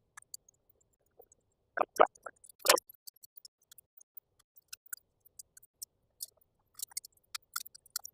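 .22 rimfire cartridges being pushed one by one into a 25-round Mossberg 702 Plinkster magazine with its plastic loader: a string of small irregular clicks and clinks, with a few louder clacks about two seconds in.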